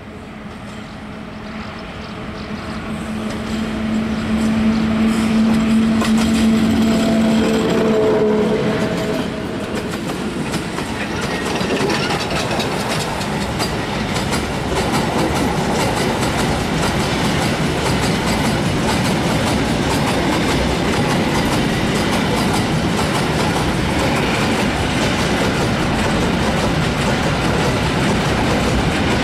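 A PKP ET22 electric locomotive approaches and passes, its noise swelling over the first few seconds with a steady hum. Then a long works train of track machines and loaded ballast hopper wagons rolls past, its wheels clattering over the rail joints without a break.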